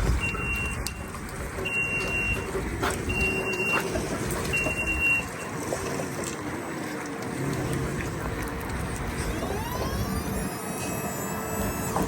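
A truck's warning beeper sounds four times, each beep under a second long and about one and a half seconds apart, over a running engine. About ten seconds in, a motor winds up with a rising whine.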